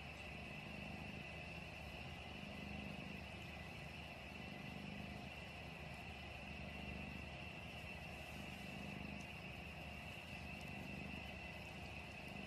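Cat purring: a faint low rumble that swells and eases in even cycles about every second and a half, with a thin steady high whine behind it.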